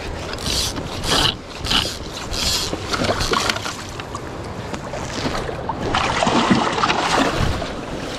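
A hooked sockeye salmon splashing in shallow river water as it is brought into a landing net: a few short splashes about half a second apart, then continuous churning splashing as the fish thrashes in the net.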